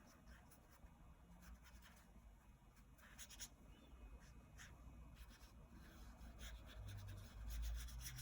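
Faint, irregular swishes of a watercolor paintbrush stroking across paper, coming more often and a little louder near the end.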